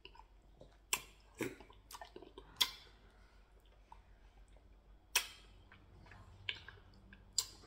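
Close-miked eating sounds: about half a dozen sharp, wet clicks and smacks scattered over several seconds as fingers pick meat out of a bowl of ogbono soup and stew and the mouth chews, with a low hum between them.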